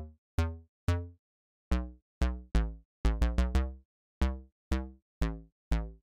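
Background electronic music: a sparse drum-machine beat of short, pitched hits that die away quickly, with a quick run of four hits about three seconds in.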